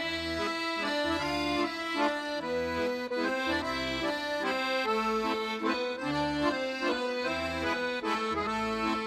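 Background instrumental music: a melody of held notes over a bass note that pulses in a repeating pattern.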